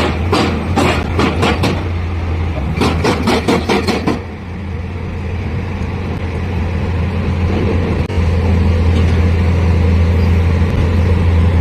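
Engine of a large drilling rig running with a steady low drone, louder from about eight seconds in. For the first four seconds a quick series of sharp knocks, two or three a second, sounds over it.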